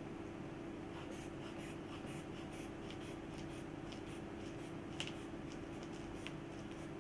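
Stethoscope recording at the arm during a blood-pressure measurement: a steady low hum with scratchy rubbing and crackling noises several times a second from about a second in, and a sharper click about five seconds in.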